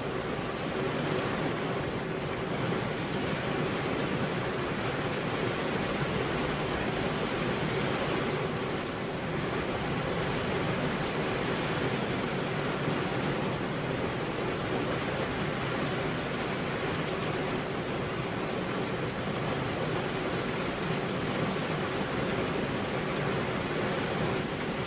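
Heavy rain falling on a road: a steady, dense hiss with no thunder.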